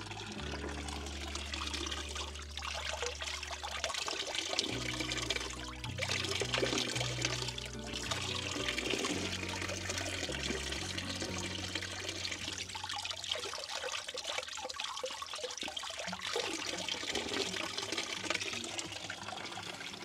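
Water running and trickling steadily, with low sustained notes of background music underneath.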